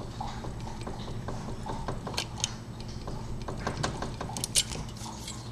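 Irregular metallic clicks and rattles of a key blank, clamped in vise grips, being wiggled and bumped up and down in an old Slaymaker wafer padlock, so that the wafers mark the blank for impressioning. The clicks grow busier in the second half, with one sharper click near the end.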